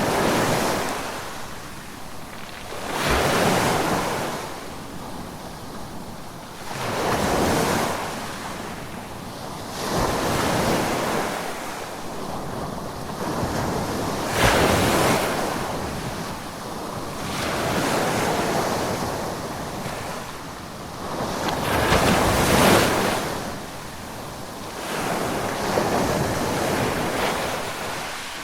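Ocean waves breaking and washing up the shore, one surge every three to four seconds, with a softer hiss of surf between them.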